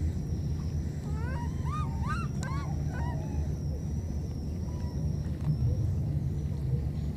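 Baby macaque calling: a quick run of about eight short, high, arching squeaks starting about a second in and lasting around two seconds, over a steady low rumble. They are the contact calls of an infant separated from its companion.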